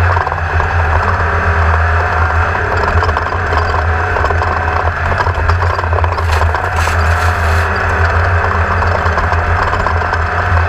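A 1600-class race car's engine running at a steady pitch, with a constant low hum.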